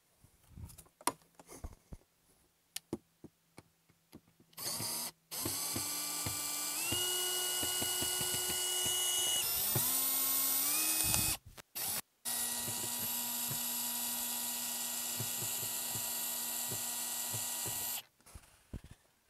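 Compact cordless screwdriver's motor whining as it backs screws out of the Bimini top mounts on the boat rail. The first run rises in pitch in a few steps as the trigger is squeezed harder, stops briefly, then a second run holds steady for about six seconds. Light clicks and handling knocks come before and after.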